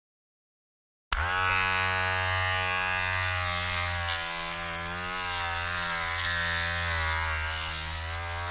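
Electric hair trimmer switched on about a second in, after silence, then buzzing steadily with a slight waver in pitch.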